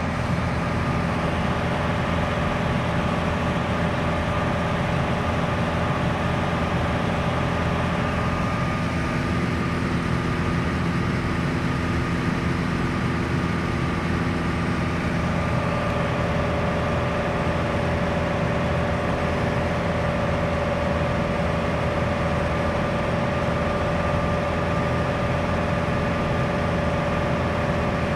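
Light touring aircraft's engine and propeller drone, heard inside the cabin as a steady hum with several held tones. The pitch pattern shifts about halfway through, with a new mid tone coming in.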